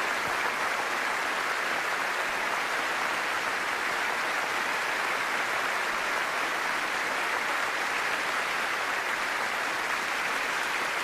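Large theatre audience applauding steadily, a dense, unbroken ovation of many hands clapping at once.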